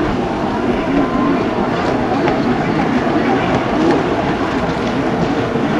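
Stand-up jet ski's two-stroke engine running hard at racing speed, its whine wavering up and down as the rider works the throttle through the turn, over the hiss of the jet spray.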